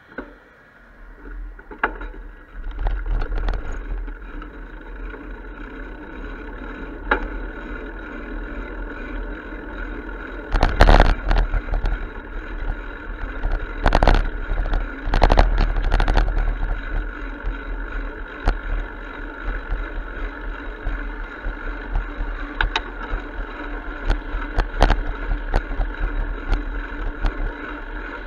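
Wind rumble and riding noise on a bicycle-mounted camera as the bike pulls away from a stop and rides along a concrete path. Several sharp knocks and rattles of the bike and camera mount come about halfway through.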